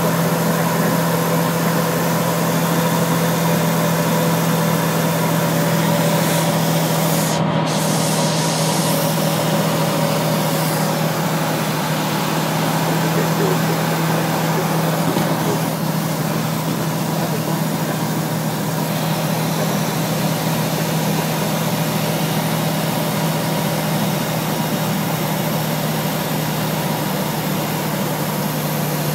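Steady drone of the HK 36 TTC Super Dimona motorglider's turbocharged Rotax 914 engine and propeller, heard from inside the cockpit. It is a constant low hum over a rush of airflow noise.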